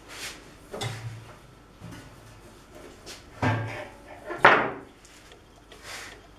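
A kitchen knife cutting through a log of dough on a wooden tabletop: a handful of scattered knocks of the blade and handle on the wood, the loudest about four and a half seconds in.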